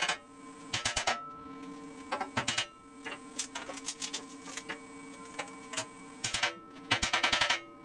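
Electric welding arc crackling in five short bursts of under a second each, tack welds on the steel trailer frame, with a steady hum between them.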